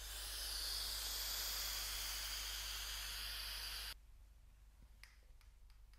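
Long, steady breathy hiss of vaping, vape vapour being blown into the set for smoke effects; it stops abruptly about four seconds in.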